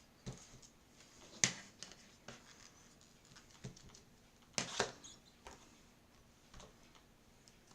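Scattered small clicks and taps of stamping supplies being handled, an ink pad and a stamp-positioning tool, with the sharpest click about a second and a half in and a short cluster of taps a little past the middle.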